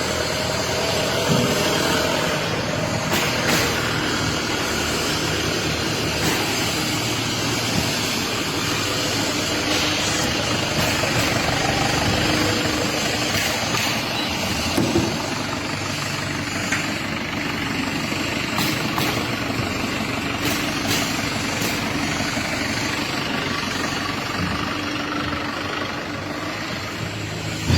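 A vehicle engine running steadily, with a few short knocks and clanks.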